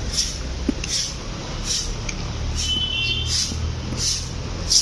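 Broom sweeping paved ground: short, even swishes about every two-thirds of a second, over a low steady rumble.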